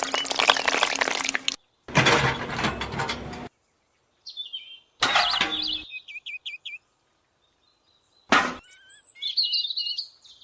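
Small birds chirping in short repeated notes. Before them come two bursts of broad noise that cut off sharply, and there is a single sharp click partway through.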